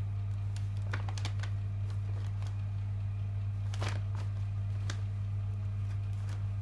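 A steady low electrical hum throughout, with scattered crinkles and rustles of paper as a cat paws and rubs against a catnip-filled paper envelope; the loudest crackle comes a little before four seconds in.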